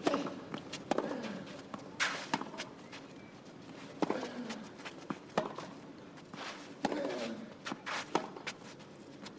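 Tennis ball struck back and forth in a baseline rally on a clay court: sharp racket hits come roughly every one to one and a half seconds, some followed by a player's short grunt.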